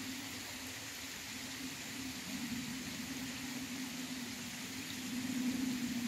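Steady background hiss with a low, slightly wavering hum underneath, a little louder near the end.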